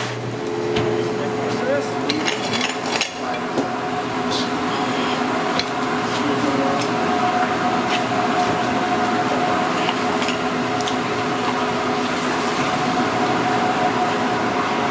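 Commercial kitchen background: steady hum of running equipment, with scattered clicks and light clatter from handling, and a knock about three seconds in.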